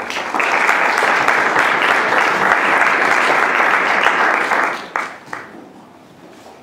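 Audience applauding, then dying away about five seconds in with a few last scattered claps.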